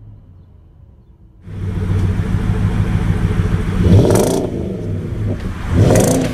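Nissan Titan's 5.6-litre V8 through a true-dual performance exhaust. It is quiet for the first second and a half, heard from inside the cab. Then it is loud at the tailpipes, idling and blipped twice, about four and six seconds in, each rev rising and falling back.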